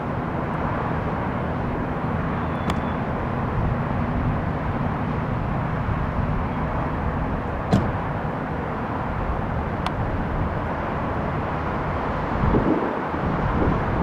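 Distant, steady rotor and engine noise of a formation of three large military helicopters flying over an airfield, a low hum over airport background rumble. A few brief sharp clicks, the sharpest about eight seconds in.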